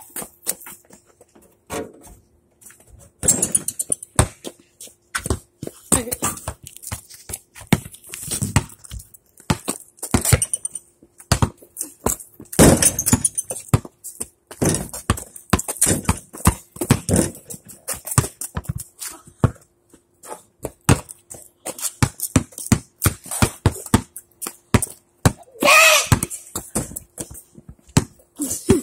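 Basketballs bouncing on a concrete driveway and hitting a portable hoop's backboard and rim: a long run of separate thuds and bangs, sometimes several in quick succession.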